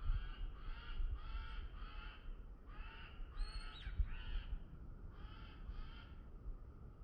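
A bird calling in a series of short, repeated cries, about two a second, in several bouts with brief pauses, over a low rumble.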